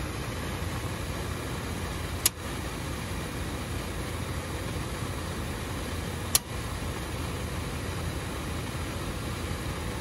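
Two sharp clicks about four seconds apart as the circuit breakers for the electric heat strips are switched on to energize high voltage, over a steady machine hum.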